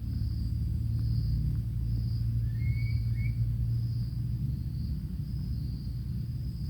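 Outdoor ambience: a steady low rumble, with insects calling in a high band that swells and fades about once a second, and a short bird call near the middle.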